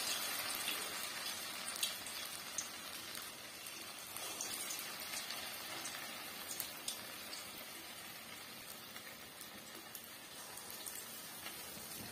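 Ulundu vadai (urad dal fritters) deep-frying in hot oil in a steel kadai: a steady sizzle with scattered small pops that slowly eases.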